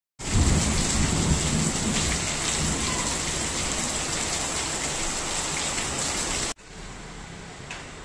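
Heavy rain pouring down and splashing onto wet soil in a plastic plant pot: a loud, dense, steady hiss. About six and a half seconds in it cuts off abruptly to a much fainter, steady rain hiss with an occasional tick.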